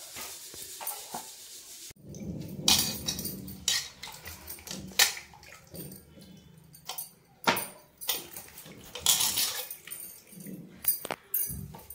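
Onions being peeled with a kitchen knife over an aluminium bowl of water: irregular scrapes and clicks of the blade on the skins, with splashes and knocks against the metal bowl.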